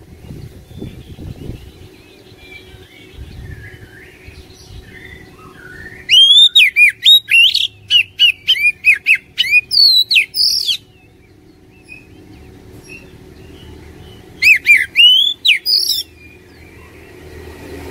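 Oriental magpie-robin singing. It starts with soft, quiet warbles, then gives a loud phrase of rapid repeated sweeping whistles lasting about five seconds, and near the end a shorter burst of the same.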